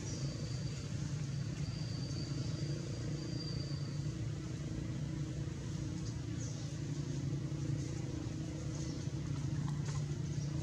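Steady low rumble, like an engine running nearby, with a faint thin high tone over the first four seconds.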